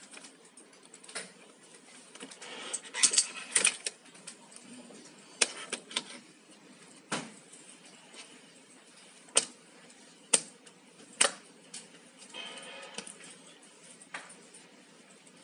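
Handling of a makeup brush cleaner's plastic and rubber parts: a brush handle being pushed into a rubber collar, with scattered sharp plastic clicks and knocks on the desk and a brief rasping sound near the end.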